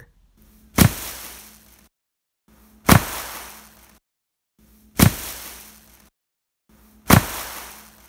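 A homemade explosion sound effect, built from layered couch hits and plastic-bag crackle, played back four times: each a sharp boom with a noisy tail that fades out over about a second. A broad mid-range EQ boost is turned up across the repeats.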